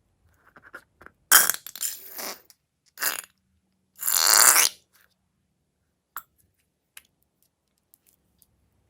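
Slime-making handling sounds: three short, loud bursts of noise in the first five seconds, then a few faint clicks.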